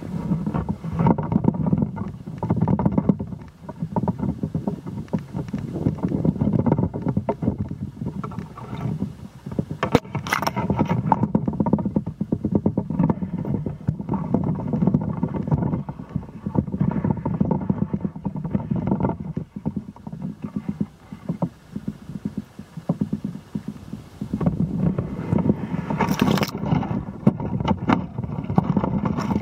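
Wind buffeting the microphone: a gusty rumble that swells and drops, with crackling handling noise and brief louder bursts about ten seconds in and again near the end.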